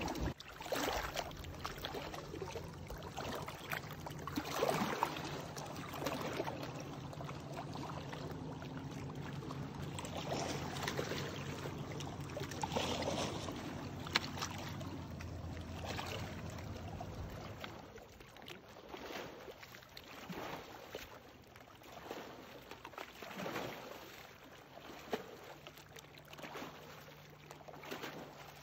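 Small lake waves lapping and washing against a rocky shoreline in soft, irregular swishes every second or two. A low steady hum lies under them and stops about two-thirds of the way through.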